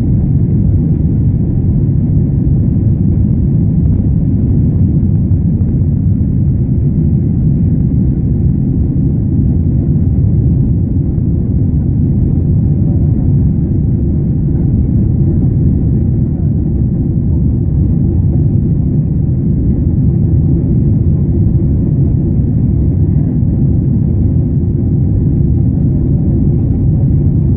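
Airliner's steady low rumble of engines and airflow, unchanging throughout.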